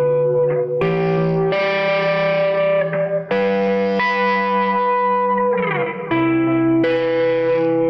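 Gibson Les Paul electric guitar played through effects with a light overdrive: chords struck every second or so and left to ring, with a downward pitch slide just before a new chord about six seconds in.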